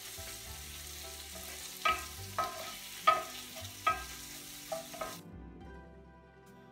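Wooden spatula stirring and scraping diced onion and bell peppers in a ridged grill pan over the sizzle of sautéing, with about five sharp scrapes. The frying sound cuts off suddenly a little past five seconds in, leaving soft background music.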